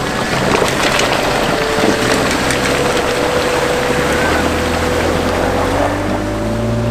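Jeep Wrangler JK Unlimited driving through a shallow rocky creek: water splashing and churning around the tires with the engine running. Low engine notes build near the end as the next vehicle approaches.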